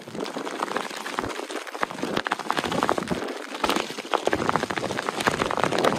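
Rain falling, with many sharp, irregular drop ticks over a steady hiss.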